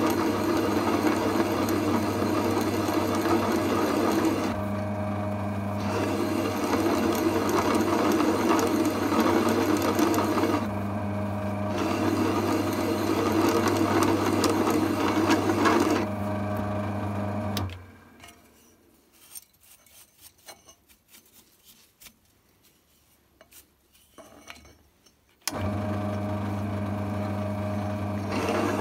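Drill press running with a countersink cutting a chamfer into a metal plate: a steady motor hum with a scraping cutting noise on top, in three spells with short breaks between them. About two-thirds of the way through the machine sound stops, leaving near silence with a few small clicks, then it starts again abruptly near the end.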